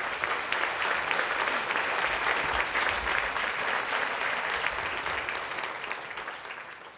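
An audience applauding, a dense patter of many hands clapping that fades away near the end.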